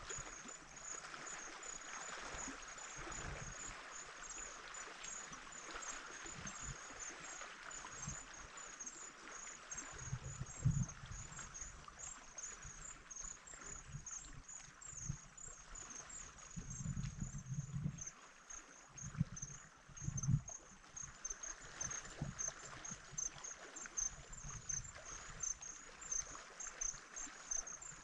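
Small waves gently lapping at a rocky lake shore, under an insect's fast, steady, high-pitched chirping. A few gusts of wind buffet the microphone in the middle.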